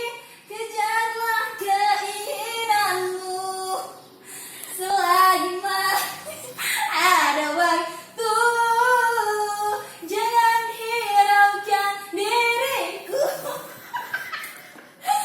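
A high-pitched voice singing without accompaniment, in melodic phrases broken by short pauses.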